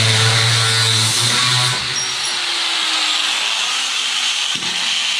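Angle grinder cutting steel with its cutoff wheel. The cut ends about two seconds in and the grinder spins down, with a single knock near the end.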